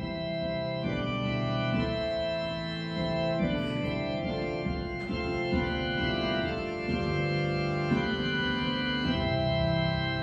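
Organ music played on an electronic keyboard: sustained chords held and changed every second or so, the introduction to a hymn.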